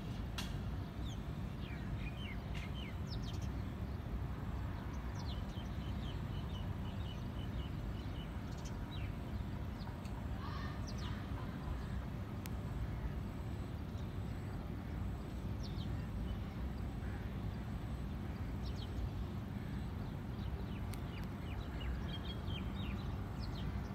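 Small birds chirping in short, high calls, some in quick runs of repeated notes, over a steady low rumble.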